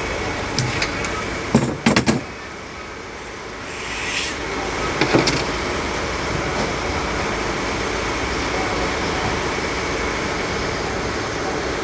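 Staple gun firing into a wooden sofa frame as fabric is fixed: three sharp clacks in quick succession about two seconds in and one more near five seconds, over a steady background noise that drops for a moment after the first three.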